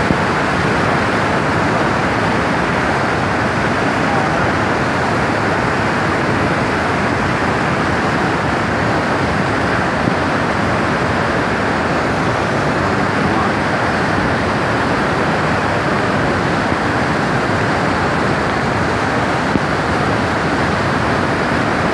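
Turbulent brown floodwater rushing through a swollen river channel, a loud, steady rush of churning water.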